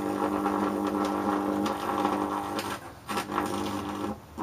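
High-voltage arc, at about 5,000 volts, drawn from an insulated chicken stick onto a neon test screwdriver, giving a loud, steady electrical buzz as it burns the screwdriver. The arc breaks off about three seconds in, strikes again for about a second, and flares once more briefly at the end.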